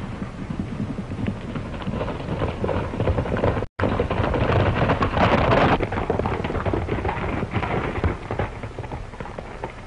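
Dense crackle and hiss of a worn optical film soundtrack, cutting out completely for an instant about four seconds in and growing louder just after.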